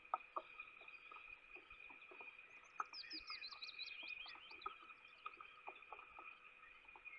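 Light rain dripping, scattered soft taps, over a steady high tone. About two and a half seconds in, a small songbird gives a fast trill of thin descending notes lasting about two seconds.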